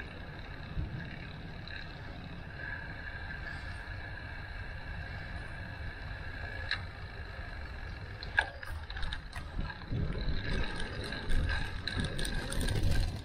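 Bicycle in motion: a steady low rumble of tyres and wind with a steady high whine, and the bike rattling and clinking, with clicks from about eight seconds in that come thicker toward the end.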